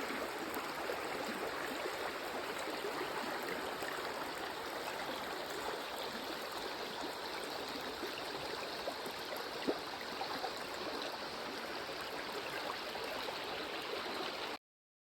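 A stream babbling steadily, the sound cutting off suddenly near the end.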